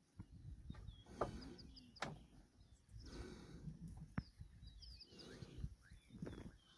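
Faint low growls and grunts from a pride of lions over a downed Cape buffalo, with birds chirping in short high notes, and a couple of sharp clicks.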